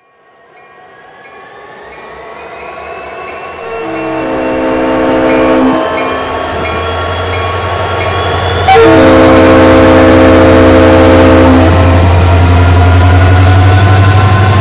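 Dubbed recording of diesel freight locomotives working: engines fading in to a loud low drone with a slowly rising whine, and a multi-note air horn sounded twice, a shorter blast about four seconds in and a longer one about nine seconds in.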